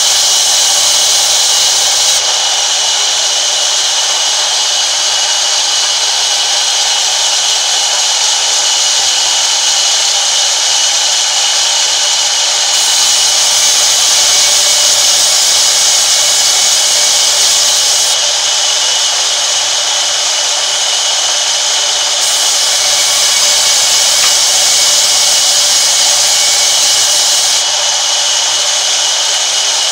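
Sawmill band saw running and ripping a long wooden plank lengthwise, a loud steady hissing rush that swells and eases a few times as the board is pushed through the blade.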